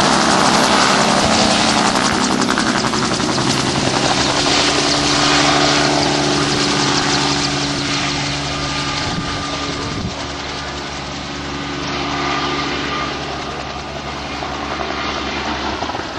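Bell 47 helicopter's piston engine and rotor running steadily as it takes off and climbs away, the sound slowly fading as it goes.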